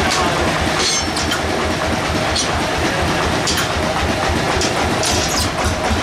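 Band sawmill machinery running steadily with a pulsing low hum. A few short sharp knocks and squeaks come as a teak log is shifted on the mill carriage.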